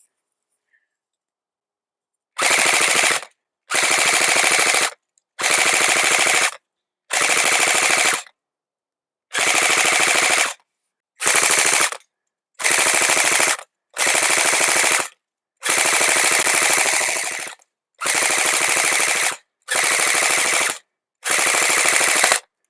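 Game Face Insurgent AK-47 electric airsoft rifle (AEG) firing on full automatic, its motor-driven gearbox cycling rapidly. The firing starts about two seconds in and comes as a dozen short bursts, each about one to one and a half seconds long.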